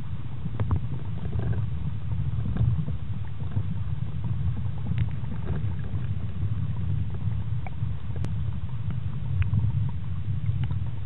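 Steady low rumble of water movement picked up by a submerged underwater camera, with faint scattered clicks and ticks.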